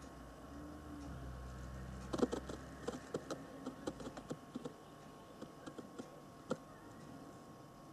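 An irregular series of light clicks and taps starting about two seconds in, densest at first and thinning out, over a faint steady hum.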